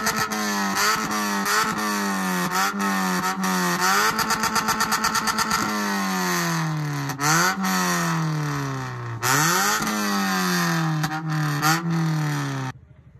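A modified Toyota Corolla's engine revved again and again through its aftermarket dual exhaust, with crackles and pops throughout. Quick blips come first, then longer revs whose pitch shoots up and sinks slowly after each rise. The sound cuts off abruptly near the end.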